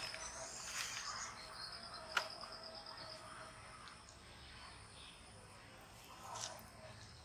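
Faint outdoor ambience: a high, rapid chirping trill for the first few seconds, with a few sharp clicks, the loudest about two seconds in.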